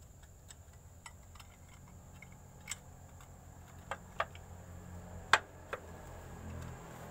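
Small metal parts clicking and tapping as the lock keys are fitted into a truck transmission's planetary range gear: scattered light ticks, with a few sharper clicks, the loudest a little over five seconds in.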